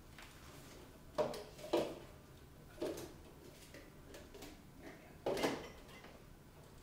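Dishes and kitchenware clacking as they are taken out of a dishwasher and put away: a handful of sharp clacks with a short ring, spaced irregularly, two of them close together near the end.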